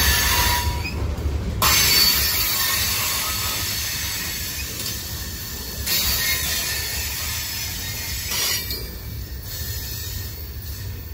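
Freight train cars (covered hoppers and gondolas) rolling past on the rails, with a steady rumble of steel wheels on track and high-pitched wheel squeal. The sound gradually gets quieter.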